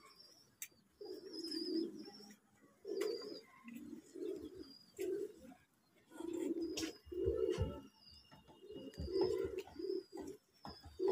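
Domestic pigeons cooing, a run of short low coos repeating one after another, with faint high-pitched chirping above them.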